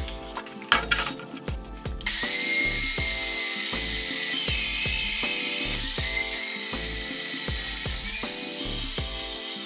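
A drill on a magnetic base drills into a steel plate: a steady, loud cutting whine that wavers in pitch, starting suddenly about two seconds in. Background music with a steady beat runs under it throughout.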